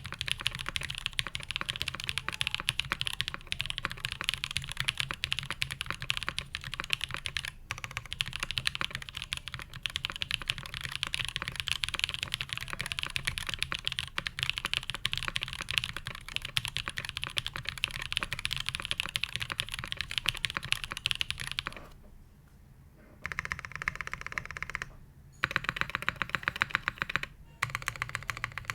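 Steady fast typing on an Iron180 custom mechanical keyboard with lubed linear Black Cherry Pies switches (H1 bottoms, Kailh Black stems, Cherry tops) on an undampened carbon fiber plate, with GMK keycaps. The typing stops briefly about two-thirds of the way through, and again for a moment a few seconds later.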